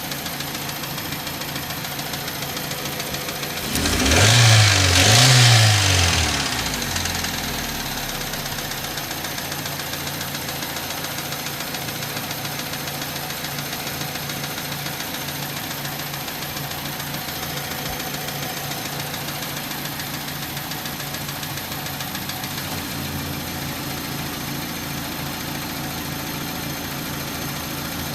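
2004 Hyundai Tiburon's 2.0-litre four-cylinder engine idling, blipped twice about four seconds in, then settling back to idle. It carries an intermittent ticking that stops and then comes back, which the owner suspects is a bearing.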